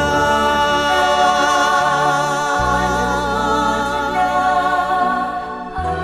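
Music: slow, sustained choral singing over held bass notes that change about two and a half seconds in and again near the end.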